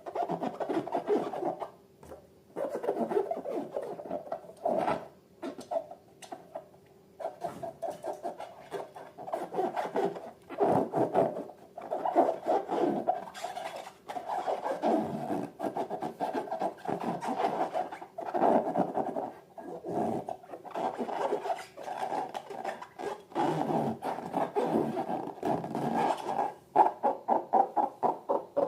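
Slime being squished and worked by hand: a dense run of quick sticky crackles and rubbing, with a few short pauses.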